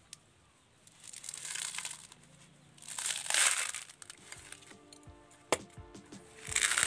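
Coconut husk fibres being prised and ripped off with a hand-held metal husking tool: three rustling, tearing bursts, about a second in, about three seconds in and near the end. Background music with a beat comes in about halfway through.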